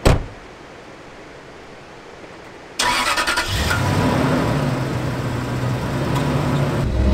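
A truck door shutting with one sharp thud, then about three seconds later the 2006 Toyota Tundra's engine cranks briefly and starts, settling into a steady idle. Near the end the engine note rises.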